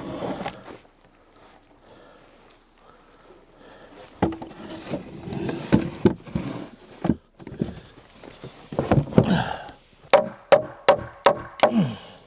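Knocks and bumps of 2x8 lumber being handled and set in place, ending in a quick run of about five sharp knocks.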